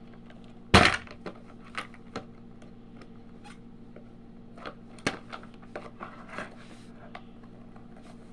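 Hard plastic toy parts knocking and clicking as a toy is pried apart by hand: one loud knock about a second in, then scattered small clicks and taps.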